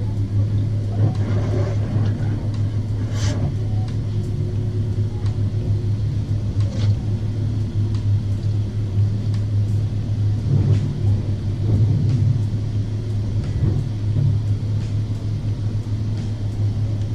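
Steady low rumble of a BMW 4 Series idling, heard from inside the cabin, with a few faint taps.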